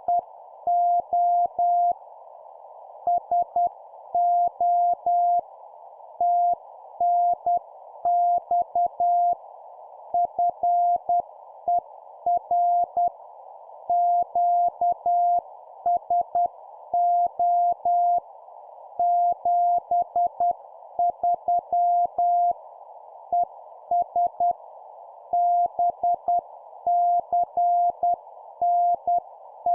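Morse code (CW) sent at about 10 words per minute: a single steady tone keyed on and off in dots and dashes, with gaps between letters and words, over a steady narrow band of hiss like a receiver's CW filter.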